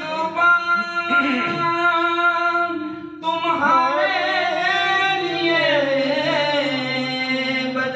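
A man's voice singing an Urdu devotional poem (naat) in long held notes that bend and glide, with a brief break for breath about three seconds in.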